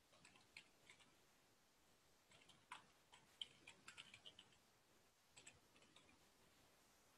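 Faint computer keyboard typing: short runs of keystrokes in three bursts separated by pauses, the busiest run in the middle.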